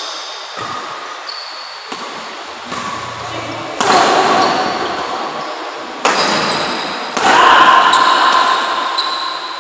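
Badminton doubles rally in an echoing hall: rackets striking the shuttlecock, shoes squeaking on the court and players' voices. Sudden loud bursts come about four, six and seven seconds in, each ringing on in the hall.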